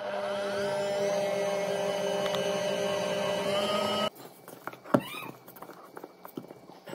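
Stand mixer's electric motor spins up and runs steadily, turning a dough hook through dough in a stainless steel bowl, then cuts off abruptly about four seconds in. A single sharp knock and quiet handling of the dough in the bowl follow.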